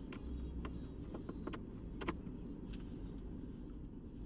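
Light, scattered clicks and taps of plastic-packaged squishy toys being handled and set down, over a steady low rumble.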